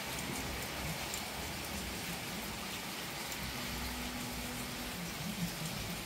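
Steady rain falling on a garden: an even hiss with faint scattered ticks of single drops.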